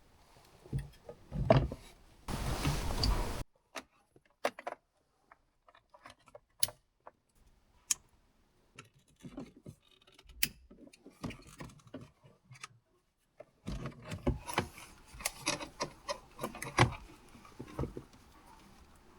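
Scattered clicks, taps and rustling from hands working plastic centre-console trim and electrical connectors around the shifter. There is a louder rustle in the first few seconds and a busy run of clicks near the end.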